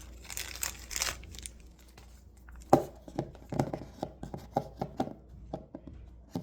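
Plastic wrapper crinkling briefly, then an irregular run of small clicks and taps from a hard plastic mini figure and its stand being handled.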